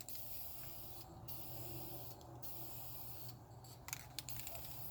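Aerosol can of clear lacquer spraying in three short hissing bursts with brief pauses between them, followed by a couple of light clicks and more spraying near the end.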